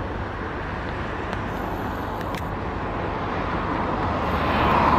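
Steady outdoor road-traffic noise, growing louder in the last second as a vehicle approaches.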